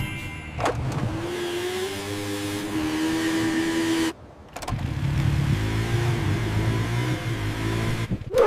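Motor scooter engine sound effect, running steadily with its pitch rising and falling. It drops out briefly about four seconds in, then starts again.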